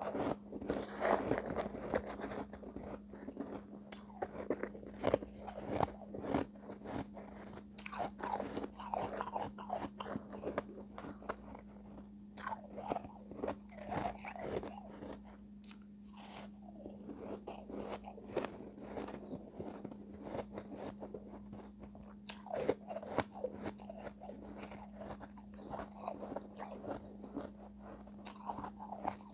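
Close-miked biting and chewing of refrozen shave ice chunks: a dense, irregular run of crisp crunches, with a steady low hum underneath.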